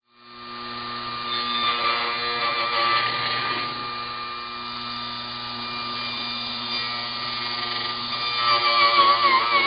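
Small wood lathe's motor running steadily, spinning a cloth buffing wheel on a tapered spindle: a steady hum with a constant whine, with wavering tones coming in near the end.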